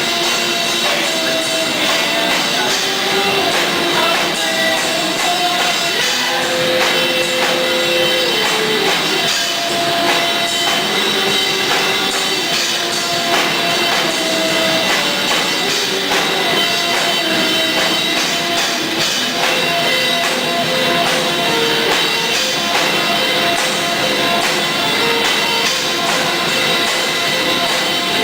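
Rock band playing live, a drum kit keeping a steady beat under a melodic line, with no lyrics heard.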